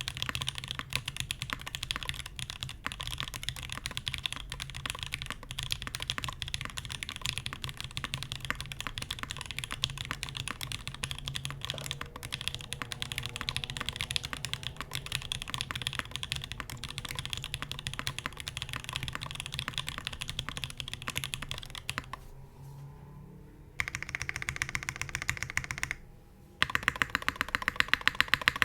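Custom mechanical keyboard typed on steadily: lubed Alpaca linear switches on an undampened G10 (FR4) plate with GMK doubleshot keycaps, giving a dense run of keystroke clacks. The typing pauses briefly about 22 seconds in, then comes back faster and louder near the end.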